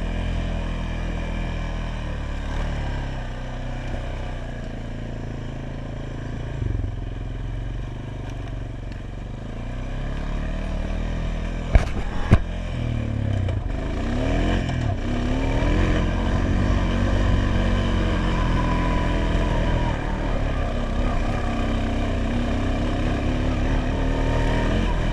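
ATV engine running as it rides over rough trail ground, its pitch rising and falling with the throttle and getting louder in the second half. About twelve seconds in there are two sharp knocks, half a second apart, the loudest sounds here.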